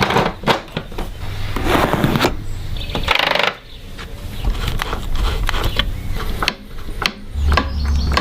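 Irregular clicks and knocks of tools and metal parts being handled during motorcycle repair work, with a few short bursts of hissing noise in the first half and a steady low hum underneath.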